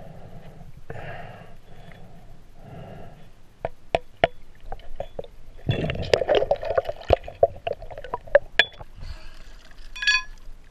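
Underwater sound from a snorkeler searching a pond bottom: soft swishing water pulses about once a second, then a dense run of sharp clicks and knocks as gloved hands dig through rocks and debris. Near the end comes the splash and gurgle of coming up out of the water.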